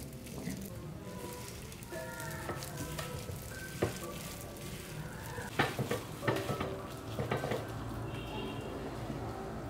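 Food sizzling as it fries in a pan and is stirred, with a few sharp clinks and scrapes of the utensil against the pan around the middle.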